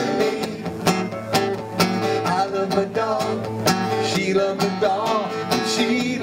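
Acoustic guitar strummed in a steady country rhythm, with a man singing along.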